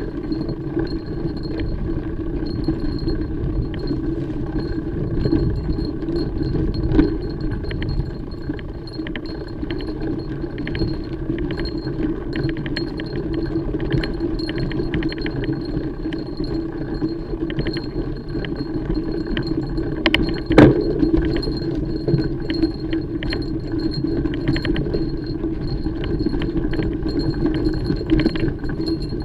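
Mountain bike ridden over a rough trail: constant rattling and clinking of the bike's chain and parts over steady tyre and ground rumble, with a sharper knock about seven seconds in and another about twenty seconds in.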